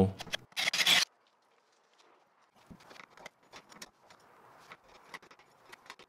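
A short scraping rub about half a second in, then, after a moment of silence, faint scattered clicks and scrapes of hands and tools working at a stucco wall.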